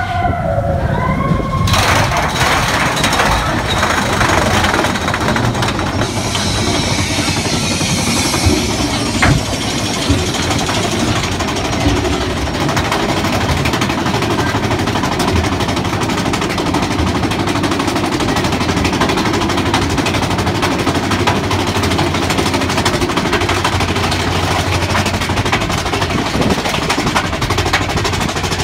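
Mine-train roller coaster rattling steadily along its track, a continuous dense clatter of the cars and wheels heard from on board.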